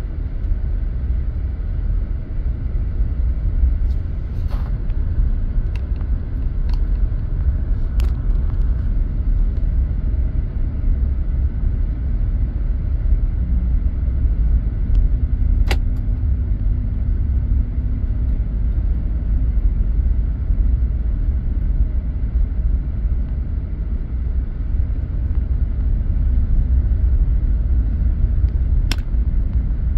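Steady low road and engine rumble of a car driving slowly, heard from inside the cabin. A few short sharp clicks cut through it, the clearest about halfway through and another near the end.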